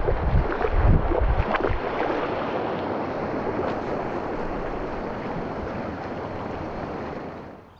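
Wind buffeting and surf noise on a camera worn on a dog's head: heavy low rumbling buffets for the first couple of seconds, then a steady hiss of waves that fades out near the end.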